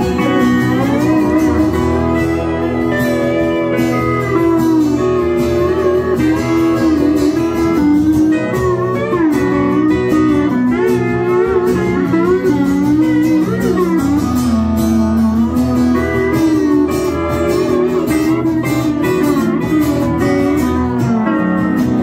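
Pedal steel guitar playing an instrumental lead, its notes sliding and bending smoothly between pitches, over acoustic guitar accompaniment.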